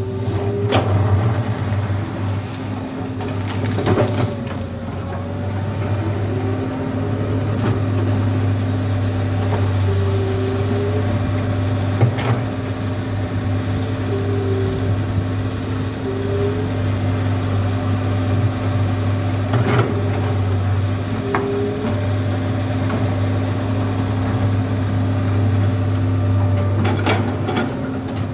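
Komatsu PC200 hydraulic excavator's diesel engine running steadily while it works, with short hydraulic whines every few seconds and occasional sharp knocks and clanks, typical of the bucket working gravel.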